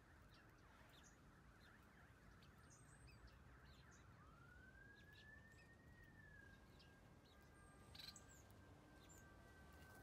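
Near silence with faint, scattered short high chirps from small aviary finches. A faint long tone rises in pitch about four seconds in and then holds steady, and a brief sharper chirp or click stands out near the end.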